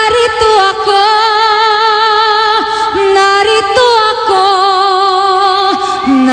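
A woman singing long, held notes with a wide vibrato, phrase after phrase, with short breaks for breath.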